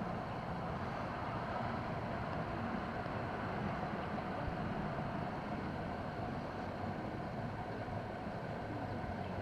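Steady outdoor background noise with a faint low hum, unchanging and without distinct events.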